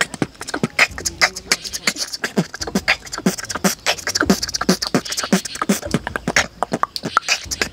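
Beatboxing: a fast run of mouth clicks and hissing hi-hat strokes over a regular deep kick-drum sound made with the lips.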